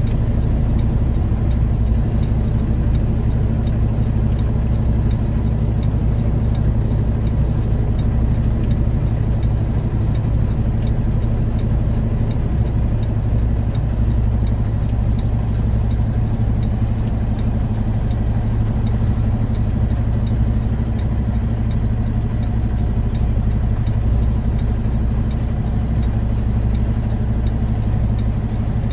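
Semi-truck diesel engine running steadily at low revs, a constant low drone with no change in speed.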